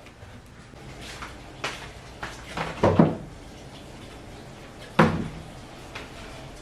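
A few knocks and bumps of household things being handled, like a cupboard or drawer being opened and closed. The loudest comes about three seconds in and another about five seconds in.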